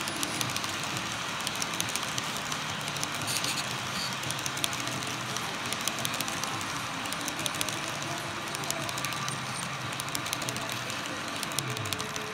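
Model train cars rolling past close by: a steady rolling rumble with a rapid stream of small clicks from the wheels on the track.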